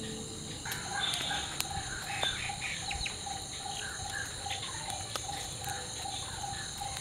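Outdoor insect chorus of crickets trilling steadily, with a short chirping call repeated about three times a second and scattered bird chirps. A few sharp crackles come from the burning matchsticks.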